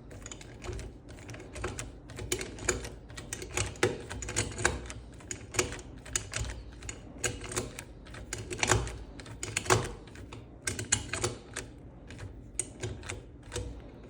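Irregular sharp metallic clicks and taps as a picking tool is worked inside a Securemme 3+3 anti-pick lock, its parts clicking as they are set.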